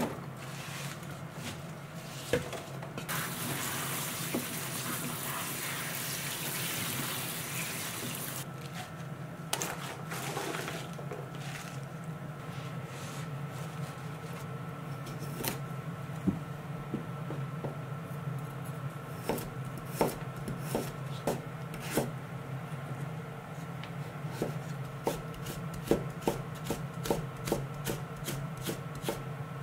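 A kitchen tap runs into a stainless steel sink for about five seconds as komatsuna greens are rinsed in a bamboo colander. Later, a kitchen knife cuts on a wooden cutting board: single strokes at first, quickening to about two a second near the end as a carrot is cut into thin strips.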